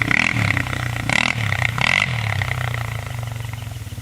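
ATV engine running at low, slightly wavering revs, with a steady high buzz from overhead power lines and brief noisy surges about a second and two seconds in.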